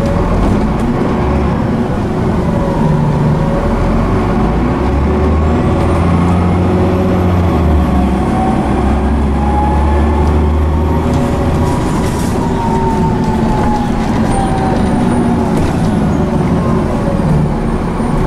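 Transbus Trident bus with its Cummins ISCe diesel and Voith D851.3E automatic gearbox running under way, heard inside the bus: a deep engine rumble with a drivetrain whine that rises in pitch through the first half, then falls away.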